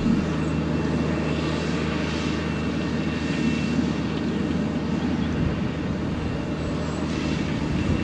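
Claas 95E tractor's diesel engine running steadily under load, pulling a Lemken Diamant 11 nine-furrow semi-mounted plough through the ground.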